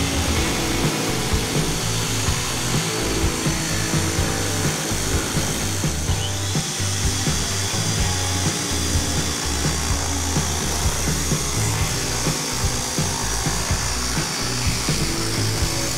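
Handheld electric sheet-metal shear running steadily as it cuts thin aluminum sheet, with background music playing over it.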